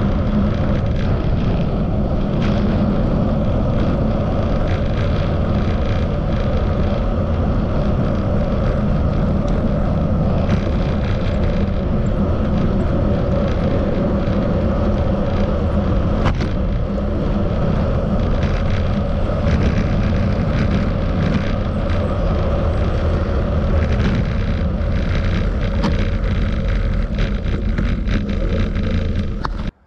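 Steady wind rush and road rumble from riding a bicycle, heard on the rider's camera microphone; it cuts off suddenly at the very end.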